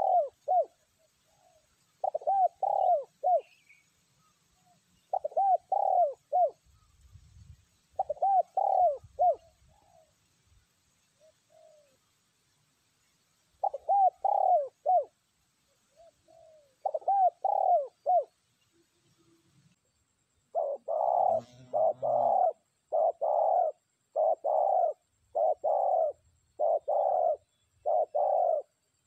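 Spotted dove cooing: short phrases of three or four coos every few seconds, then, about two-thirds of the way through, a faster even run of single coos, about one and a half a second.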